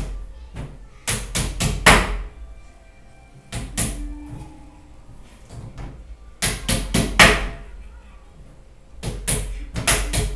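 Hammer blows on a wooden cabinet panel in quick runs of three to five strikes, four runs with short pauses between.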